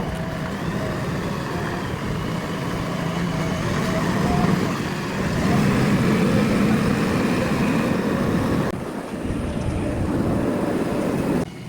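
JCB 3DX backhoe loader's diesel engine running as the machine works, louder from about five seconds in and dropping away abruptly near the end.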